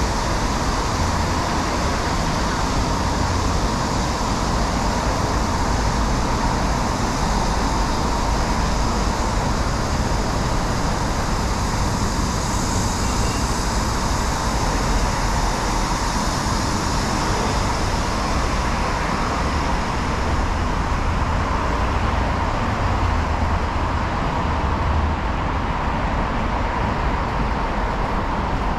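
Steady city traffic noise with wind rushing over the microphone of a moving bicycle's action camera, an even, unbroken rumble with no distinct events.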